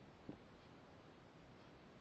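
Near silence: faint room tone with a single soft tick about a third of a second in.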